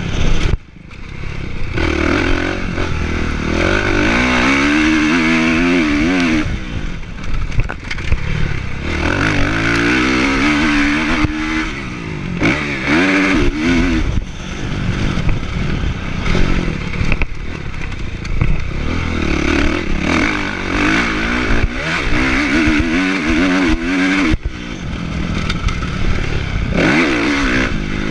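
Kawasaki motocross bike's engine revving up and down over and over as the rider works the throttle and gears around the track. It drops out briefly about half a second in.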